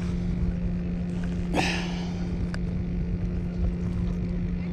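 Wind buffeting the microphone over a steady low electric hum from the boat, with a brief rushing noise about one and a half seconds in and a single click a second later.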